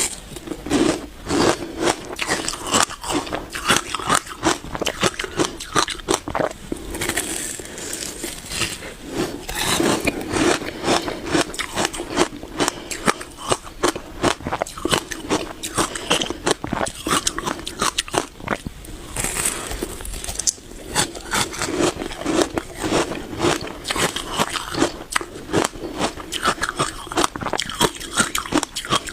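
Close-miked biting and chewing of frozen passion fruit ice: a steady run of sharp, irregular crunches and crackles.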